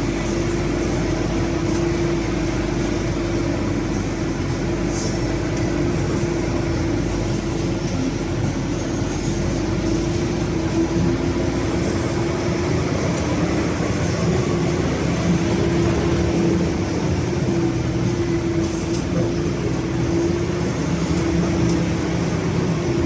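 A vehicle in motion, running steadily with a constant drone and rumble.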